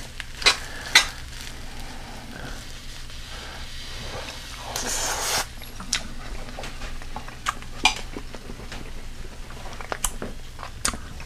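Refried pinto beans sizzling gently in a cast iron skillet, with a few light clicks of a utensil against the pan and a brief louder rustle about five seconds in.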